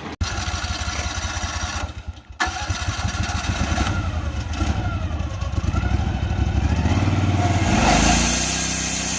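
Sawmill's gasoline engine running with a fast throb, cut briefly twice early on, then picking up speed and holding at higher revs near the end.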